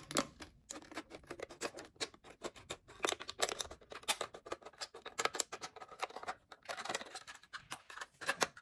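Scissors cutting around a thin plastic water bottle: many short, irregular snips and crackles as the blades go through the plastic and the bottle crinkles in the hands.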